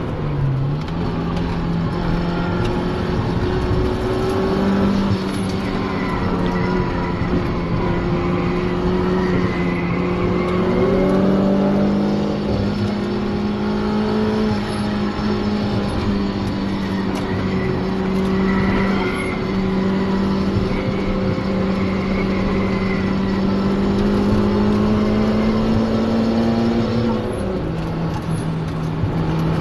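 Mazda Miata's four-cylinder engine running under load at track speed, heard from inside the cabin: a steady drone that holds its pitch for long stretches, climbs slowly a few times and drops near the end, over a constant rushing noise.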